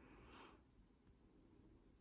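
Near silence: room tone, with a faint brief rustle in the first half second.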